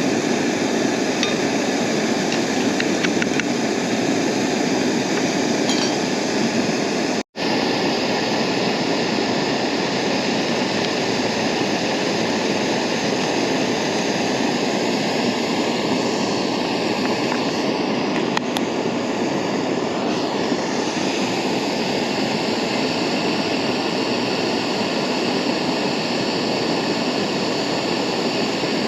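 Camp stove burner running with a loud, steady, even rushing noise, heating water for coffee. There are a few light metallic clinks in the first several seconds, and the sound drops out for an instant about seven seconds in.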